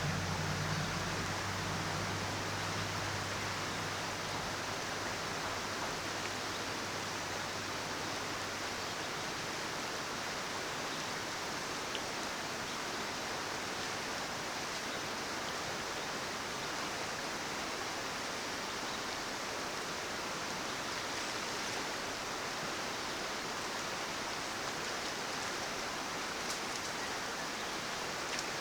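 A mountain river rushing steadily over rocks, a constant even wash of water. A low hum under it fades out within the first several seconds.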